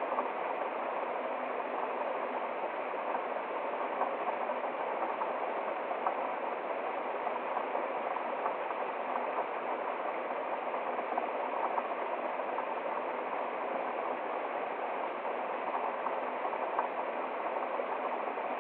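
Small woodland waterfall splashing over rocks into a shallow stream: a steady, unbroken rush of water.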